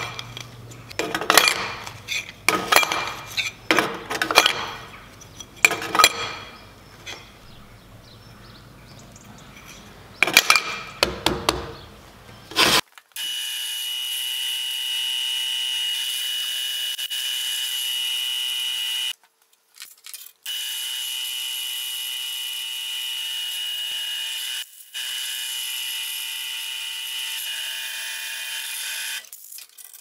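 Aluminium plates clattering and clinking against a steel jig as they are handled, then a pillar drill press running steadily as its bit cuts through aluminium plate. The whirring stops for a moment a little past halfway and dips briefly again a few seconds later.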